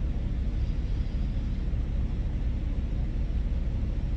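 Steady low rumble of an idling diesel semi-truck.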